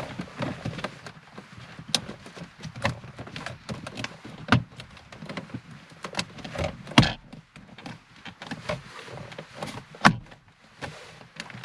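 Plastic centre-console trim of a Ford Mondeo Mk4 being handled and pressed back into its clips around the gear lever and cupholder: a series of irregular clicks, snaps and knocks with light rustling, the two loudest about seven and ten seconds in.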